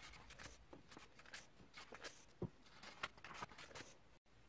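Near silence: a few faint scattered clicks and soft rustles from a paper workbook and pen being handled.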